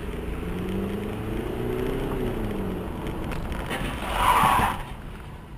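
Motor vehicle running, its engine pitch slowly rising and falling, with a brief louder, hissing noise about four seconds in.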